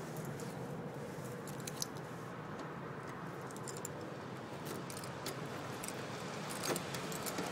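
A bunch of keys jangling in scattered small clicks and rattles over a steady background noise.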